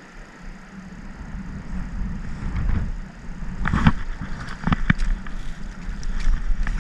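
Wind buffeting the microphone, a low rumble that builds up about a second in, with a few sharp clicks and rustles of handling in the second half.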